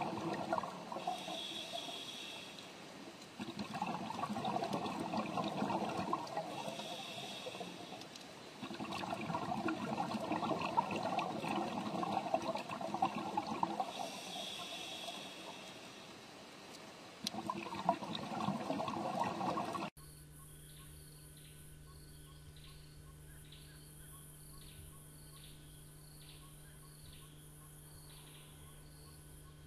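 Rushing, bubbling water that swells and fades every few seconds. After an abrupt cut about two-thirds of the way in, it gives way to faint insect chirping, a little more than once a second, over a steady low hum.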